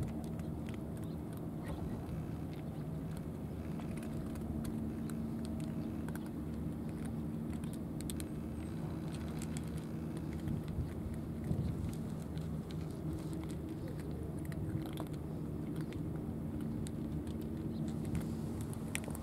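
Cats eating from trays, their chewing heard as scattered small clicks and crunches, over a steady low engine hum.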